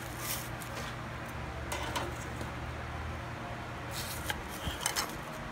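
A few short rustles and scrapes as fried pies are set down with metal tongs onto greaseproof paper on a plate, over a steady low hum.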